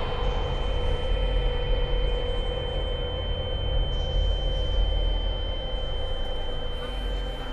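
Film sound design: a steady, high-pitched ringing tone held over a deep low rumble.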